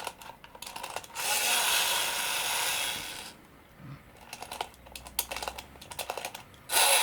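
Clockwork spring motor of a 1960s wind-up tin toy boat: the key is wound with a run of ratchet clicks, then the motor is released and whirs loudly for about two seconds before stopping. This happens twice.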